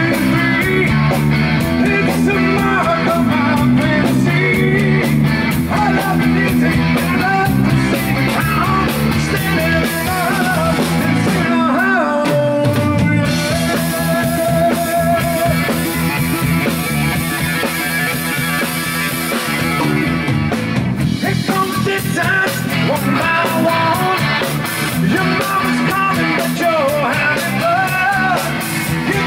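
Live rock band: a male singer over electric guitar and drum kit. About halfway through, the drums drop away for several seconds, leaving held guitar chords and voice, and then the full band comes back in.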